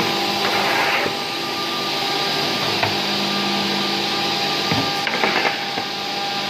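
Automatic edge banding machine running with a steady mechanical hum and whine. A few brief knocks and rattles, loudest about five seconds in, come as edged panels are handled.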